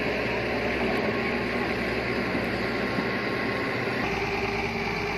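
Wheeled excavator's diesel engine running steadily as the machine digs, with a slight change in its tone about four seconds in.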